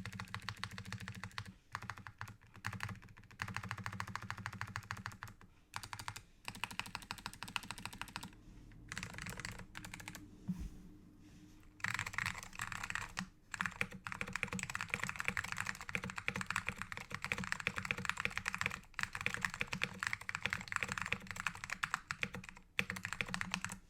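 Mechanical keyboard with lubed SKCM Orange Alps switches on a plastic plate and dye-sub PBT keycaps, typed on fast and continuously, with a few brief pauses.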